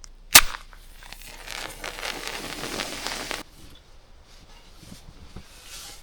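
A sharp click, then about two seconds of crinkling and rustling that stops abruptly.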